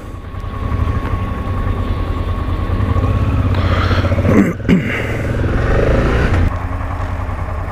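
Honda Transalp 700's V-twin engine pulling away through a roundabout, getting louder as it accelerates, with a brief dip about halfway through, then easing off near the end.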